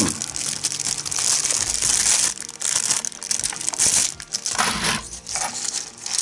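Thin clear plastic bag crinkling and crumpling as it is opened and handled. A few clicks of small plastic toy parts tumbling out of it come about four and a half seconds in.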